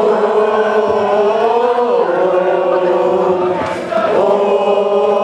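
Large crowd of football supporters singing a chant together in long held notes.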